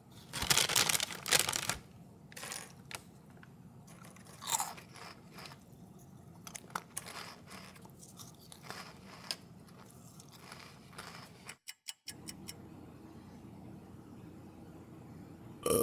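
Cartoon sound effects of cookies being crunched and chewed: a loud burst of crunching in the first second and a half, then scattered shorter crunches and bites over a faint low hum.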